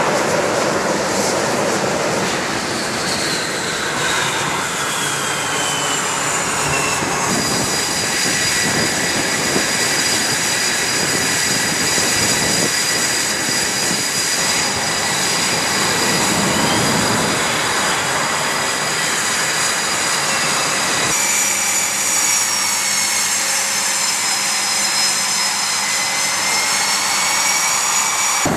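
F/A-18 Super Hornet jet engines running on a carrier flight deck: a steady jet roar with several high whining tones, one sliding down in pitch in the first few seconds. The mix of whines changes abruptly twice, about a quarter of the way in and again about three quarters through.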